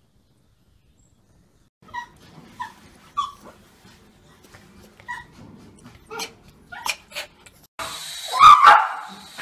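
Small dog giving a string of short, high yips and whimpers, about eight of them spaced roughly half a second to a second apart. About eight seconds in they give way to a steady hiss and a brief, much louder burst of sound.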